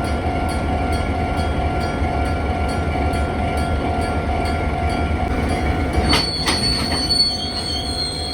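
Freight train rolling past with a steady low rumble. About six seconds in come a few sharp clanks of wheels over rail joints, then a high-pitched steel wheel squeal that lingers to the end.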